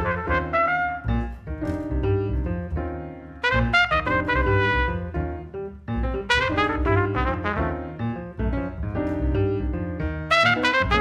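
Jazz trio playing: an open trumpet plays melodic phrases separated by short breaks, over plucked upright double bass and piano.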